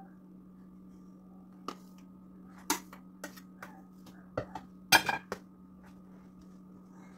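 Metal icing spatula and plastic cake scraper being handled, a string of sharp clicks and knocks as the tools are tapped and set down, the loudest about five seconds in. A steady low hum runs underneath.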